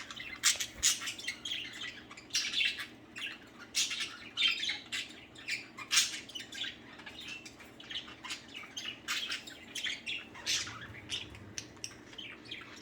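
Several budgerigars chattering and chirping together, a steady stream of short, quick calls with scratchy squawks mixed in.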